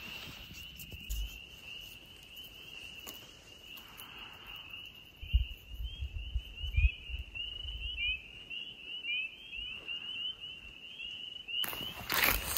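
Chorus of spring peepers: many short, rising peeps overlapping in a continuous high band. A few low thumps come around the middle, and a burst of noise near the end.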